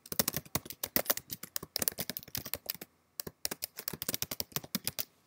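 Typing on a computer keyboard: quick runs of keystrokes, with a brief pause about three seconds in.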